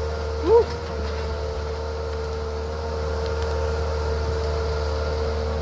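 John Deere 160LC hydraulic excavator's diesel engine running steadily as the machine digs out a tree stump: a constant low drone with a steady whine over it.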